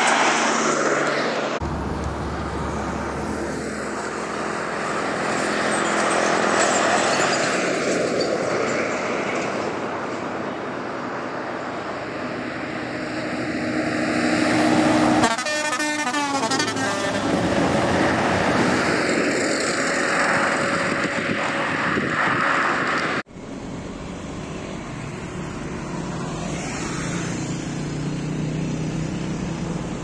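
Pakistani buses driving past on a road, their engines running amid tyre and road noise that rises and falls as each goes by, with a vehicle horn sounding at times.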